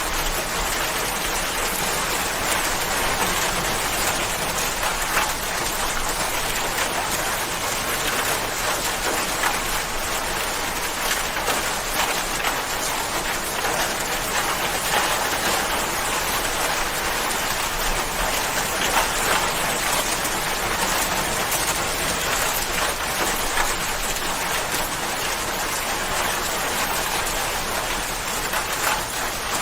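Steady rain falling, an even hiss of many drops striking a surface.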